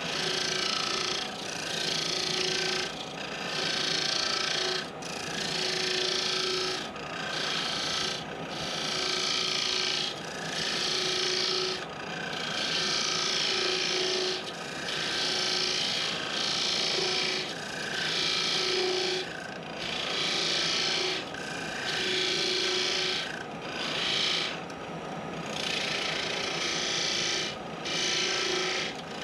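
Wood lathe turning a small cedar piece, a handheld turning tool cutting into it in repeated passes: about fifteen hissing cuts, each a second or so long with short pauses between, over the steady hum of the running lathe.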